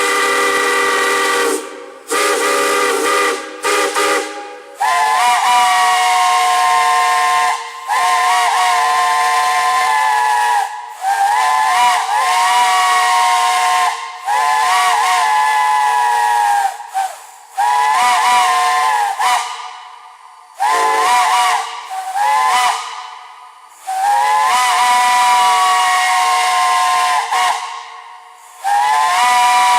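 Steam whistle blown in a run of long and short blasts, the pitch bending as each blast opens, with steam hissing. The first few blasts are lower-pitched; from about five seconds in a higher-pitched whistle sounds.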